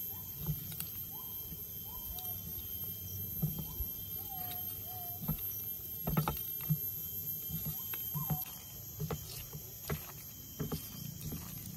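A bare hand mixing and squeezing a wet filling of sliced mushrooms, raw egg and spice paste in an enamel bowl: irregular soft squelches and clicks, the sharpest about halfway through. A few short faint bird calls sound in the background.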